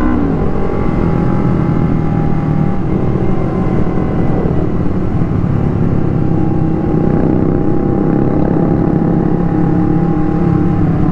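Sport motorcycle engine heard from the rider's seat while cruising at a steady speed; its note drops right at the start, then holds steady over a constant rush of road and wind noise.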